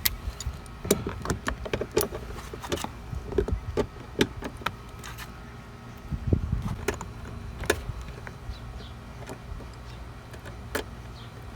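Scattered metal clicks and clinks of hand tools being handled, a socket extension being fitted to a ratchet, over a low steady hum.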